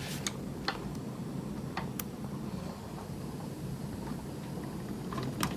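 Light handling sounds with a few small sharp plastic clicks as a three-pin program-card lead is pushed into the programming port of a Hobbywing QuicRun 1080 ESC, over a steady low rumble. The clicks come singly, the sharpest about two seconds in, with two more close together near the end.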